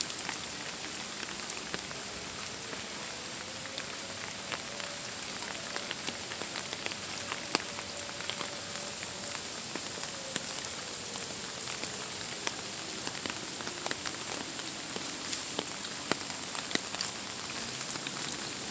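Steady rain pattering with scattered drip clicks, and an air raid siren far in the distance wailing faintly: its pitch rises over a couple of seconds, holds, then slides down, and it goes on lower and fainter near the end.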